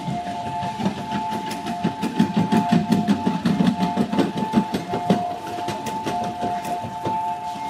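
An engine-driven generator running, its low rumble swelling for a few seconds in the middle. Scattered metallic clinks and knocks come from temporary tents being taken apart, over a steady high two-note tone.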